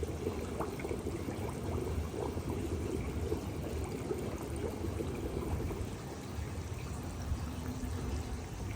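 Hot spring water running steadily into an outdoor bath.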